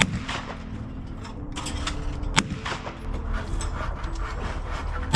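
Shotgun shots at clay targets, one sharp report about two and a half seconds apart from the next.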